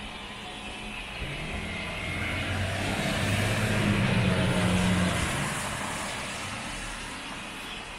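A motor vehicle passing with a low hum, swelling to a peak about four seconds in and then fading.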